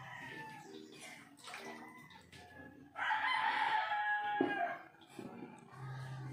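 A rooster crowing once: a long call of about a second and a half that starts about three seconds in and drops away at the end.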